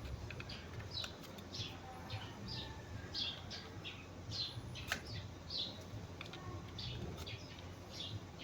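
A small bird chirping over and over, about two short high chirps a second, each dropping in pitch. A single sharp click comes about five seconds in.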